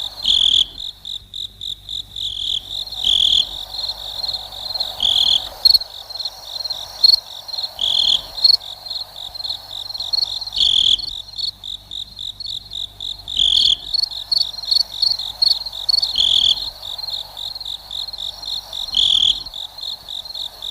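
Cricket chirping: a fast, steady high-pitched pulsing trill, with a louder, slightly lower chirp repeating about every two and a half to three seconds.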